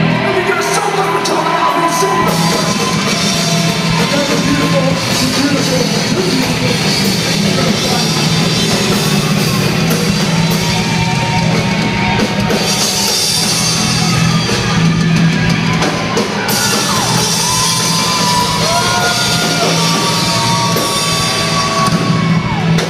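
Rock band playing live through a PA: electric guitars, bass and drum kit, loud and dense. A high melody line slides between held notes in the second half.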